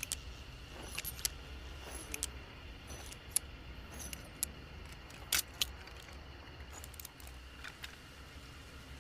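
Schofield Smith & Wesson Model 3 revolver being handled: light, scattered metallic clicks and small rattles from its action, with the loudest pair about five and a half seconds in, over a low steady hum.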